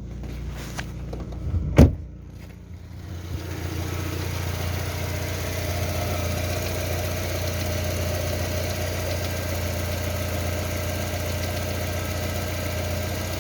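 1.6-litre 16-valve VAZ-21129 engine idling steadily, warmed up, with its hydraulic-lifter knock now practically gone. A single sharp click about two seconds in, after which the engine sounds louder.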